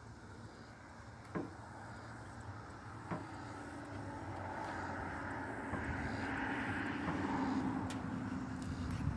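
A passing motor vehicle: a steady low engine hum that grows louder over several seconds and eases off slightly near the end, with two sharp clicks in the first few seconds.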